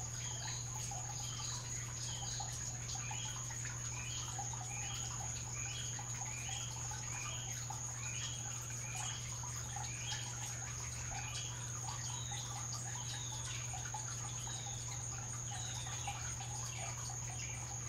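Outdoor ambience: a chirping call repeated about every two-thirds of a second, fading out near the end, over a steady high thin whine and a steady low hum.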